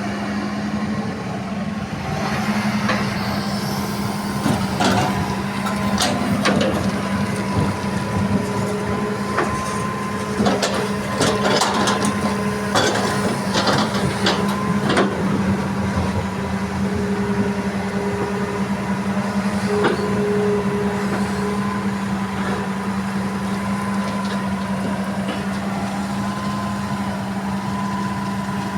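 Heavy diesel engine of an excavator running steadily while it loads soil and limestone into a dump truck. From about 5 to 16 seconds in there is a series of clunks and rattles as the material drops into the truck's bed.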